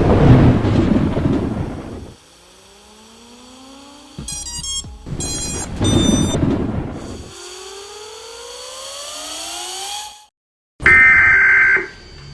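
Edited soundtrack of dramatic sound effects: a rumbling boom, then slowly rising wailing tones broken by two short electronic beep bursts. After a brief cut to silence comes a loud, steady, high alert tone like an emergency-broadcast signal.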